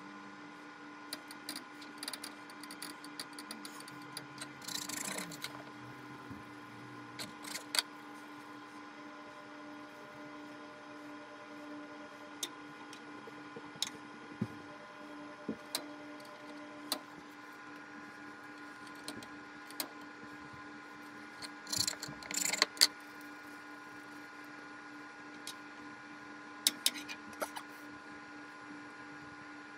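Soft kitchen handling noises while stuffed dough balls are shaped by hand and set on a plate: scattered light clicks and taps, with a few sharper ones, over a steady low hum.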